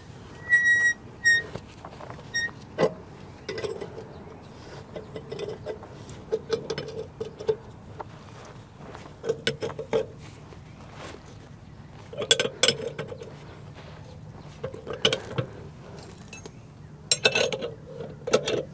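Hand ratchet wrench clicking in short bursts, with metal clinks, as the bottom bolts of a semi truck's suspension air bag are tightened. Several separate bursts come a few seconds apart.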